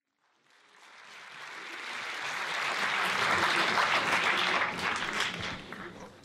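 Audience applauding, fading in over the first few seconds and fading out near the end.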